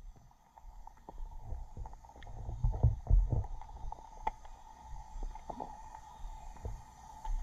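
Underwater microphone sound: low rumbling surges of moving water, heaviest around three seconds in, with scattered clicks and knocks and a faint steady hum.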